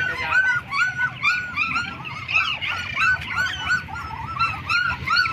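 A 20-day-old black German shepherd puppy crying: a fast, unbroken run of short, high, squeaky whimpers, each rising and falling, about three a second.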